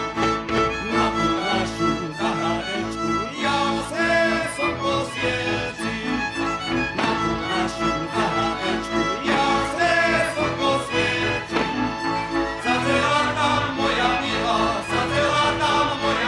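Slovak folk string band playing a dance tune led by violins, with a steady beat.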